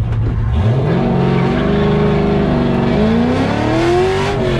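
LS1 V8 of a swapped Nissan 240SX drift car heard from inside the caged cabin. The engine holds a low note, revs up about half a second in, steadies, then climbs again before easing off near the end.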